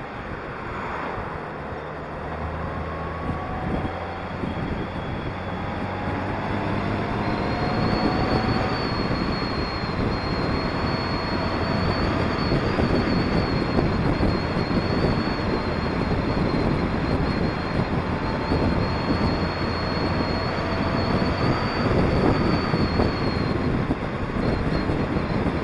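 Honda Gold Wing motorcycle on the move: its engine note is clear at first. Wind rushing over the microphone and road noise grow louder over the first eight seconds or so, then hold steady.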